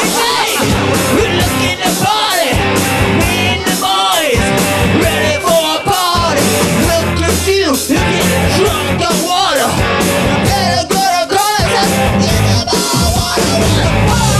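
Live rock band playing a fast song: electric guitars, bass and drum kit with a steady driving beat, and a singer on vocals through the microphone.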